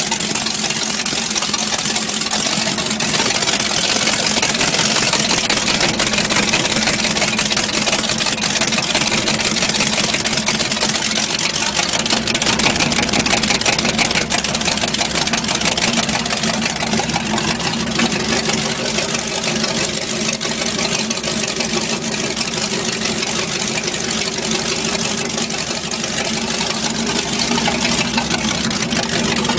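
A 454 big-block V8 in a jet boat idling steadily with a rapid, uneven popping. The owner cannot trace the popping at idle: enriching the mixture has not cured it.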